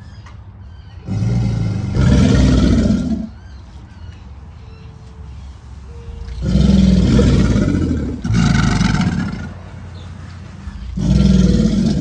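Alligators bellowing: deep roars of one to two seconds each, coming in bouts about a second in, twice in the middle, and again near the end. This is their mating-season bellowing call.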